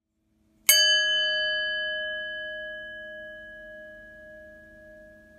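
A single struck metal chime rings out about three-quarters of a second in, a bright bell tone that fades slowly over several seconds above a faint low drone.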